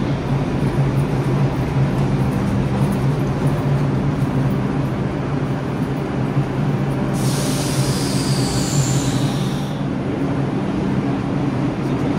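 Vintage R33/R36 subway train running at steady speed, with a steady low hum under the running noise. About seven seconds in, a high-pitched wheel squeal joins for two to three seconds.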